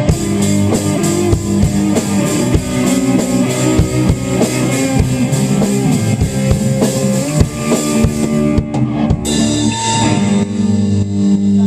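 Live rock band playing at a sound check: drum kit with kick drum and cymbals under electric guitar and bass. About nine seconds in the cymbals briefly drop out, leaving held guitar and bass notes.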